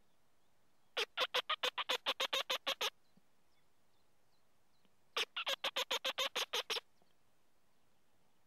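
Trøndermusa mouse-squeak predator call: two runs of quick, even squeaks, each about two seconds long at roughly seven a second, imitating a mouse to lure a red fox.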